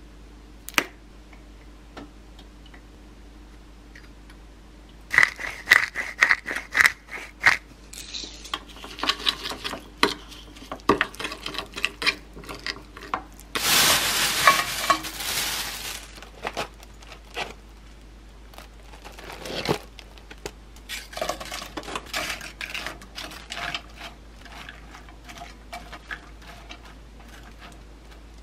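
Metal spoon clinking and scraping against a ceramic bowl as seasoning is stirred. About halfway through comes a loud rustle of a plastic bag for about two seconds as sliced meat is emptied into a frying pan, followed by more light clatter of kitchen handling.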